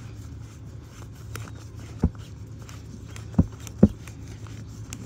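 Threaded plastic nuts of a PVC compression coupling being screwed tight by hand, with faint scraping and ticking and three sharper knocks, about two, three and a half and four seconds in, over a steady low hum.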